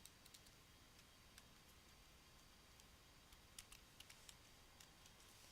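Faint computer keyboard typing: a scattered run of light key clicks, a little busier about three and a half seconds in, with near silence between them.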